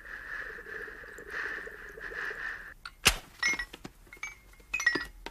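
A steady hissing noise that cuts off abruptly, then a sharp thunk followed by a few clicks and short ringing metallic tones.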